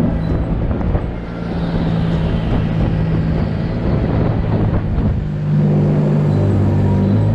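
An engine running steadily with a low hum, getting a little louder about five seconds in.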